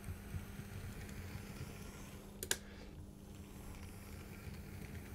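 Hornby 00 gauge Black 5 model steam locomotive running past on its track: a faint mechanism whirr with fine light clicking over a steady low hum, and one sharp click about two and a half seconds in. The locomotive is on its first, not yet run-in run and is cutting out a lot despite all-wheel pickup.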